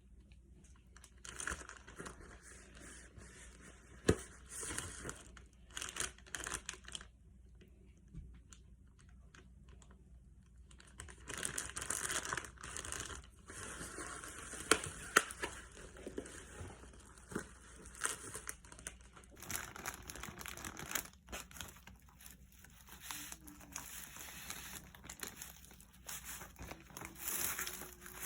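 Packaging crinkling and tearing in irregular bursts as the chicken wings are handled, with a few sharp knocks. There is a quieter pause about a third of the way in.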